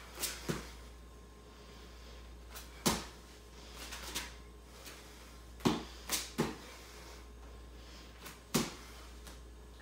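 Bare hands and feet thudding on exercise mats during burpees: short sharp impacts in clusters about every three seconds as the hands land, the feet kick back and the body lands from the jump.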